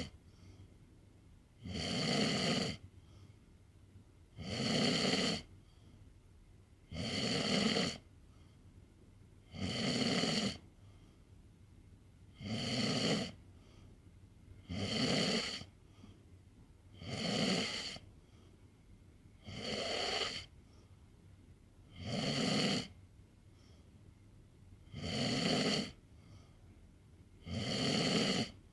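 A sleeping pet snoring in a slow, very regular rhythm, one snore about every two and a half seconds.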